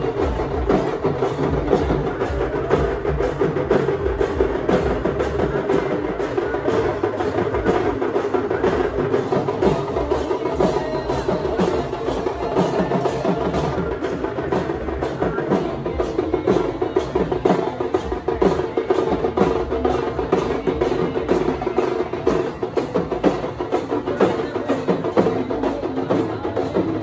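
Procession percussion: drums and sharp clacking strikes playing a steady beat without a break.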